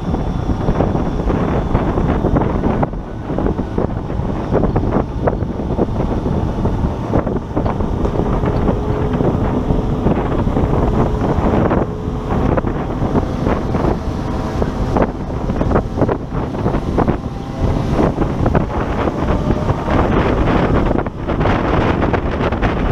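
A tractor towing a loaded trailer runs steadily at road speed, a dense rumble of engine and road noise with a faint engine tone that rises a little in the middle. Wind buffets the microphone and short knocks and rattles come throughout.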